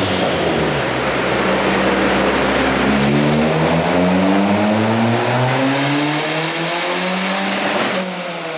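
Turbocharged Ford Focus engine at full throttle on a dyno power run, its pitch climbing steadily through the revs, then dropping abruptly about eight seconds in as the throttle closes at the end of the pull.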